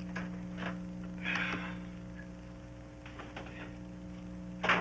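Steady electrical hum on an old film soundtrack, with a few faint clicks and a short noisy clatter about a second and a half in, and a sharper click near the end.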